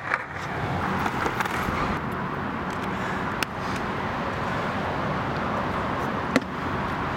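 Steady outdoor background noise with two sharp clicks, one about three and a half seconds in and one shortly before the end.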